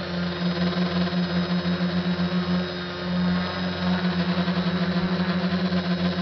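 SK450 quadcopter's electric motors and propellers humming steadily in flight, heard from the craft's own camera. The hum pulses, and the beat quickens to several throbs a second after about four seconds.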